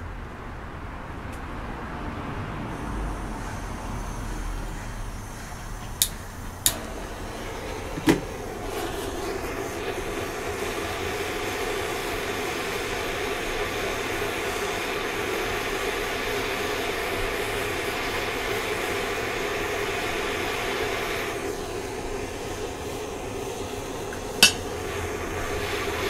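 Hand-held propane torch on a cylinder: gas hissing, three sharp clicks about six to eight seconds in as it is lit, then the flame burning with a steady rushing sound as it heats bronze in a steel pan to melt it. One more sharp click near the end.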